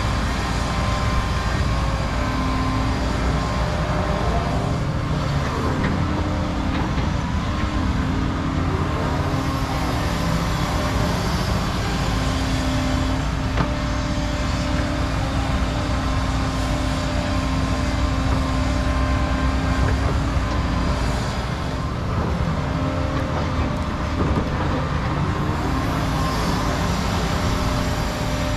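Diesel engines of tracked excavators, a Cat 335 and a Volvo, running steadily under load while digging topsoil, a constant hum with the engine and hydraulic note rising and falling briefly now and then.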